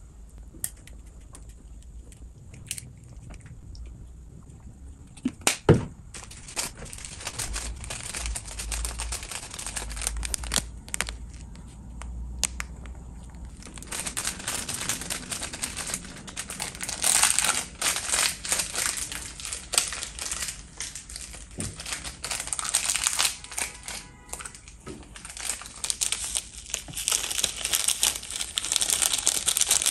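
Crinkling of foil-and-plastic instant-noodle seasoning sachets being handled, torn open and shaken out over the noodles. It grows louder and busier after the first few seconds, with a single sharp click about six seconds in.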